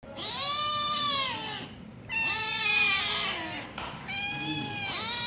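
Cats meowing to beg for food: three long meows one after another, each rising then falling in pitch, with a fourth starting near the end.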